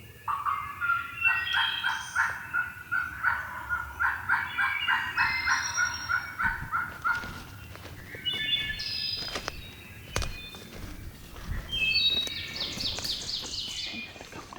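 Turkey yelping: a long, even run of yelps at about four a second that stops about seven seconds in. Songbirds chirp in short, higher phrases afterwards.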